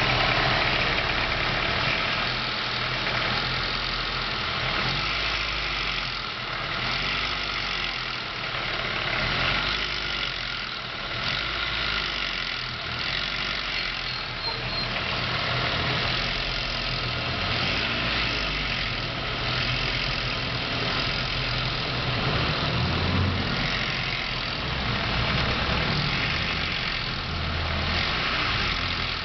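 Nissan Tsuru's GA16DE 1.6-litre four-cylinder engine running steadily, with an odd noise the owner cannot place.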